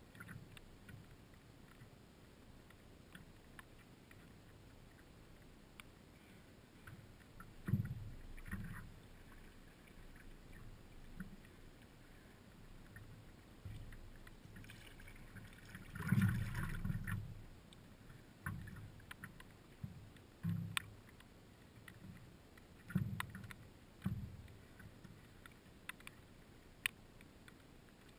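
Stand-up paddleboard paddle strokes on calm lake water: quiet, irregular dips and pulls every one to three seconds, with faint ticks between them and the loudest splash a little past halfway.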